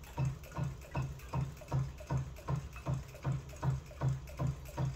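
Quarter-scale model Rider-Ericsson hot air engine running, a steady beat about two and a half times a second, each beat a low thump with a click. The engine is running on its own and working its water pump.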